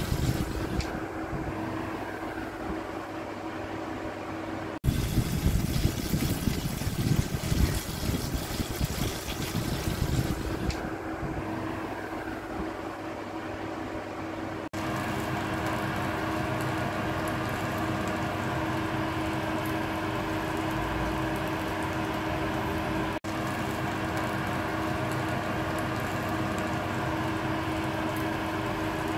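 Steady mechanical hum of an electric oven's fan running, with a louder rushing noise for several seconds from about five seconds in.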